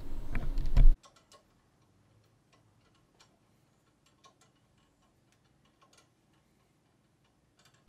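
A low hum that cuts off suddenly about a second in, then near silence broken by faint, irregular metal ticks of a wrench tightening a threaded fitting onto a propane hose held in a vise.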